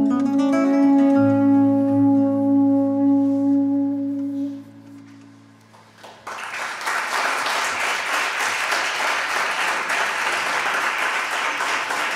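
A soprano saxophone holds a final note over a plucked-string chord, both ringing out and dying away over about five seconds. About six seconds in, audience applause breaks out and keeps going.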